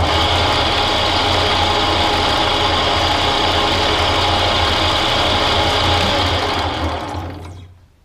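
Bridgeport-clone milling machine running steadily with a motor hum. It starts abruptly with a click and fades out near the end as it is switched off.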